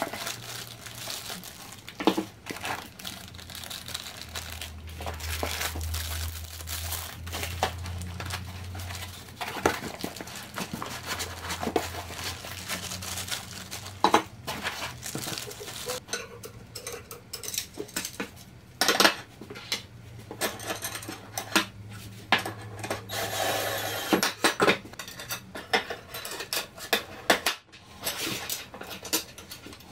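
Parts being handled during unpacking: plastic wrapping crinkling, foam packing rubbing, and aluminium extrusion frame pieces and small metal hardware clinking and knocking on a workbench in many short, irregular hits.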